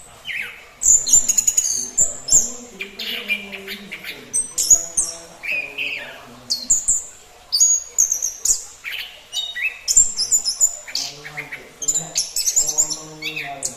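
Orange-headed thrush (anis kembang) singing: a rapid, varied run of short high chirps and whistles, phrase after phrase with only brief gaps.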